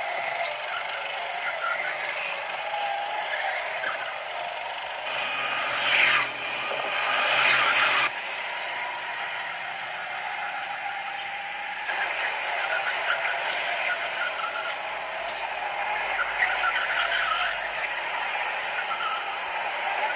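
Several go-kart engines running as the karts lap the track, with wavering engine notes. The sound swells as karts pass close about six to eight seconds in, then cuts off suddenly.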